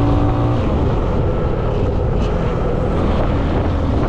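Motorcycle riding in traffic: engine running under a rushing wind and road noise on the microphone. A steady hum drops away about half a second in, leaving the rushing noise and low rumble.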